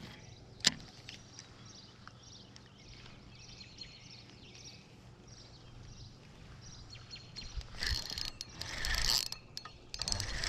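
Fishing reel being worked: a sharp click about half a second in, then quiet mechanical reel noise with a few faint bird chirps, and louder rustling handling noise near the end.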